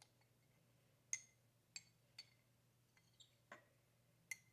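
About half a dozen faint, scattered clinks of a kitchen utensil against a glass container, the sharpest a little over a second in.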